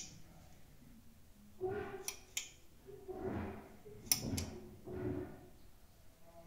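Horror-film sound design: four short swelling tones, each rising and fading, with sharp clicks about two seconds in and again about four seconds in.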